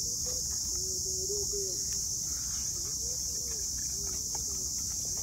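Steady high-pitched chorus of insects, with a faint wavering tone that comes and goes and a few small clicks.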